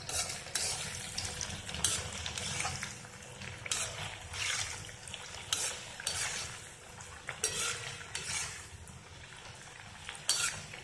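Gram-flour and coriander vadi pieces deep-frying in hot oil in an iron kadhai, sizzling steadily. A slotted metal spoon scrapes and clinks against the iron pan again and again as the pieces are turned.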